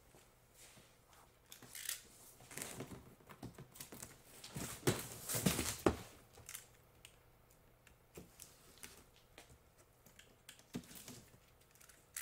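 A large cardboard box being handled: rustling and scraping cardboard, with a cluster of heavier knocks and thuds about five to six seconds in as it is tipped up onto its end on the concrete floor. After that, a few faint rustles and ticks from the top of the box.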